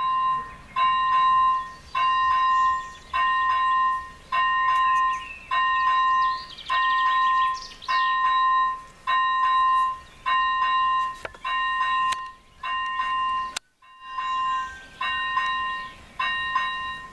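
A railway level crossing's first-generation electronic warning bell ringing. It gives one harsh, awful-sounding tone about once a second while the crossing signals flash, the warning that a train is approaching.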